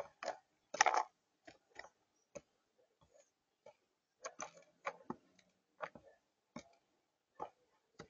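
Mourning dove pecking at peanuts and seed on a feeder table: irregular sharp taps and clicks of the beak, some in quick clusters.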